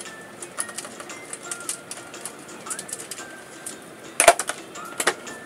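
Plastic inner body panel of a Yamaha LC135 underbone being unscrewed and pulled off, with small clicks and taps of the screwdriver and panel, and two louder plastic clacks about four and five seconds in. Birds chirp briefly in the background.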